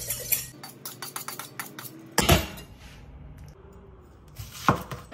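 A chef's knife being honed on a sharpening steel: a run of quick metal-on-metal scraping strokes in the first two seconds. A loud sudden sound follows about two seconds in, and near the end the knife cuts through an onion onto a wooden cutting board.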